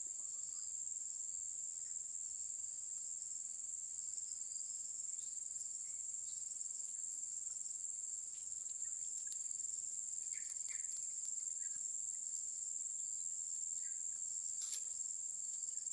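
Insects singing in a steady, unbroken high-pitched drone.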